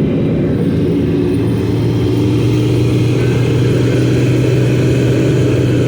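Engine of an amphibious Duck tour vehicle running steadily under way, a low steady hum settling in about a second in over continuous driving noise.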